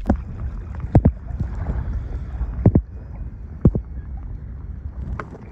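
Water and wind rumbling low around a small fishing kayak, broken by five sharp, irregularly spaced knocks, a couple of them doubled, from something striking the kayak or gear.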